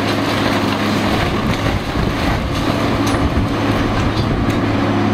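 Caterpillar excavator's diesel engine running steadily as its grapple tears into the wooden, fiberglass-sheathed hull of a fishing boat, with scattered sharp cracks and knocks of breaking wood and debris.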